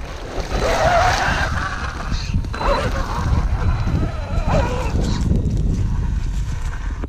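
Wind rumbling on the microphone, with a wavering pitched sound that rises and falls several times over the first five seconds.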